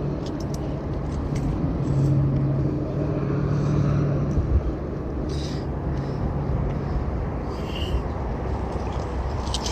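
A motor vehicle's engine running with a steady low hum, swelling about two seconds in and fading away by about seven seconds, with a few light clicks.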